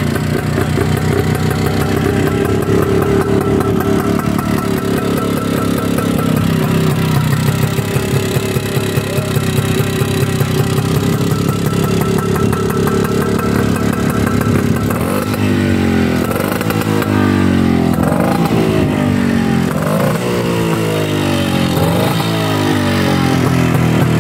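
1950 Francis-Barnett Merlin's two-stroke single-cylinder engine running on its stand, ticking over steadily, then from about fifteen seconds in its revs rise and fall again and again as the throttle is blipped.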